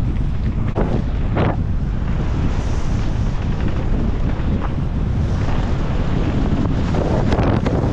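Wind buffeting a GoPro's microphone as a mountain bike descends a race stage at speed, with a few short clatters from the bike over rough ground, one about a second and a half in and a cluster near the end.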